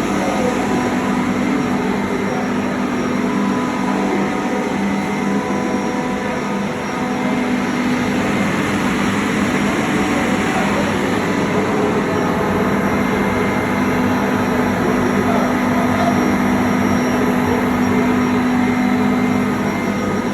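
SRM screw compressor of an industrial brine chiller running: a loud, steady machine drone with a constant low hum under a dense hiss.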